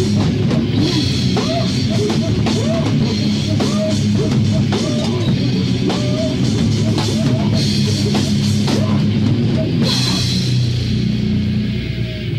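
Noisecore music: fast, chaotic drumming and heavily distorted guitar and bass in a dense wall of noise. About ten and a half seconds in, the crashing thins out into a held, distorted low chord.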